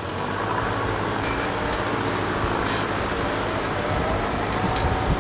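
Farm tractor engine running steadily under way, with a steady rush of noise over it and a faint rise in pitch partway through.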